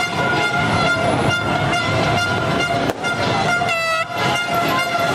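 Horns blaring together in a loud, steady, sustained blast, with a short wavering tone about four seconds in. A single sharp crack sounds about three seconds in.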